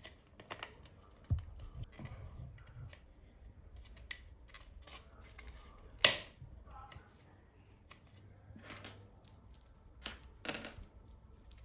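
Scattered light clicks and clinks of small hard objects being handled, with one sharper click about six seconds in and a few more near the end.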